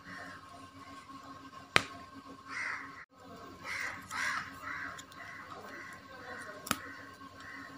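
Stiff PVC basket wire being handled and knotted, with two sharp plastic clicks: one about two seconds in, the other near the end.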